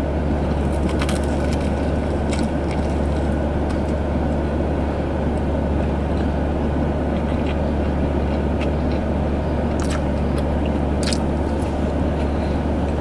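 Steady low hum inside a parked car's cabin, with a few brief crunchy clicks from eating pizza.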